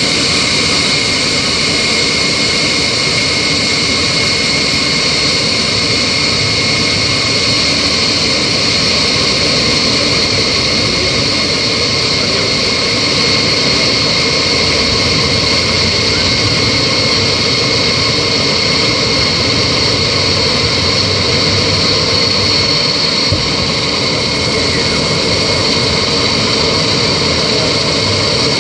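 Yak-42 airliner's three rear-mounted Lotarev D-36 turbofans at takeoff thrust, heard from inside the cabin: a loud, steady rush with a high turbine whine, as the aircraft rolls down the runway and lifts off near the end.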